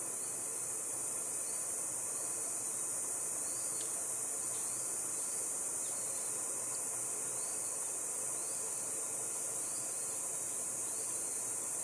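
Steady, high-pitched chorus of tropical rainforest insects, a continuous shrill hiss, with faint short rising chirps repeating about once a second beneath it.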